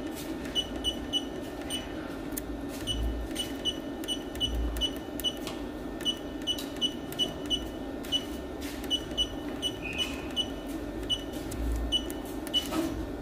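Key-press beeps from a digital ultrasonic welding generator's control panel: short, high beeps, about two to three a second and unevenly spaced, one for each press as the weld-time setting is stepped down. A steady low hum runs underneath.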